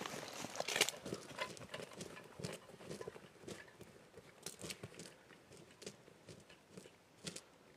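Footsteps crunching through dry brush and corn stubble, a sharp crackle about a second in, the steps growing fainter as the walker moves away.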